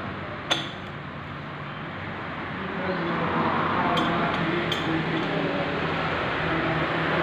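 A few sharp metal clinks of a long-shafted wrench on the rear sprocket bolts of a motorcycle wheel hub as the sprocket is fastened: one about half a second in, two more around four and nearly five seconds in. A steady background noise runs underneath.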